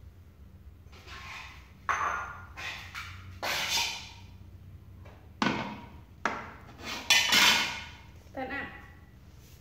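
Metal cookware clanking and scraping: a steel wok with a ladle in it knocked and set down on a portable gas stove, about six sharp knocks over several seconds.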